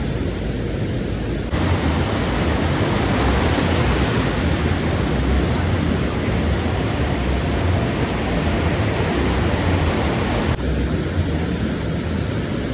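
Steady rushing noise of ocean surf, with no clear individual wave breaks; the noise shifts abruptly in level and tone about a second and a half in and again near the end.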